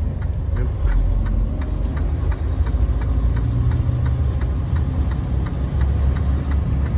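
A semi-truck's engine running with a steady low rumble, under an even ticking of about three ticks a second.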